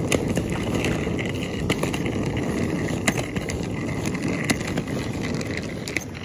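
Rustling, rumbling handling noise on a camera microphone, with scattered sharp clicks, over a faint steady chirring of night insects.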